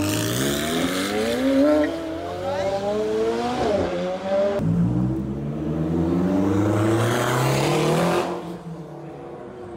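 McLaren supercars' twin-turbo V8s accelerating hard away one after another, the engine note rising in pitch as each pulls through the gears. There is a shift about three and a half seconds in. The sound drops away in the last second or so.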